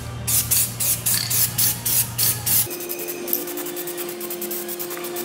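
Aerosol can of black spray paint shaken, its mixing ball rattling about five times a second, then spraying in a steady hiss from about two and a half seconds in.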